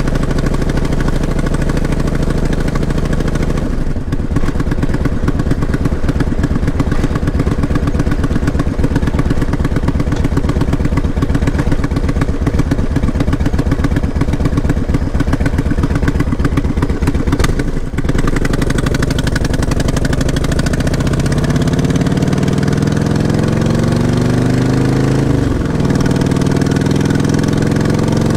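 Motorcycle engine running steadily while riding, with brief drops in sound about 4 and 18 seconds in, such as a throttle lift or gear change. From about 20 seconds in the engine pitch climbs steadily as the bike accelerates.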